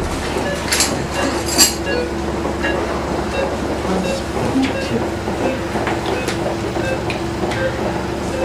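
Operating-theatre room noise: a steady machine hum with scattered clicks and clinks of instruments being handled.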